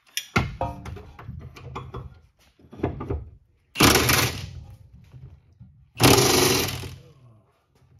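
Cordless impact wrench run in three bursts, a longer one first and then two short rattling ones about two seconds apart, loosening the bolts at the exhaust pipe under the car.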